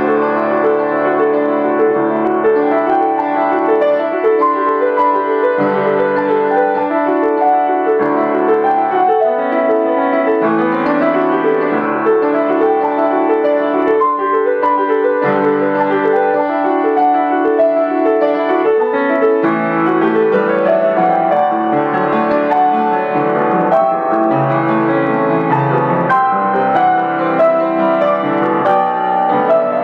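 Grand piano played solo: an unbroken passage of many notes in both hands at a steady level.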